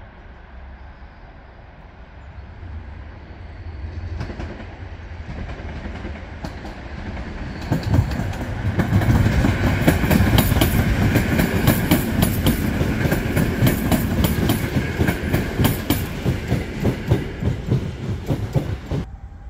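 A Polregio EN57-type electric multiple unit approaching and passing close by. It grows louder over the first eight seconds, then its wheels clatter rapidly over the rail joints, a dense clickety-clack that stops abruptly near the end.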